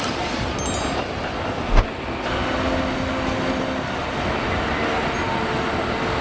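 Bandit 21XP wood chipper running under load as it grinds tree trunks: a steady, dense mechanical noise with one sharp thump about two seconds in.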